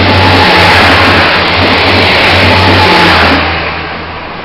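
Taiwan Railway diesel railcar train running past close by, its diesel engines humming under the rumble of wheels on rail. The sound fades away from about three seconds in as the last car goes by.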